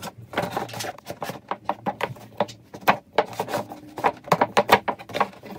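Plastic doll packaging crinkling and snapping in quick, irregular crackles as hands tug at it to free a doll that is stuck in it.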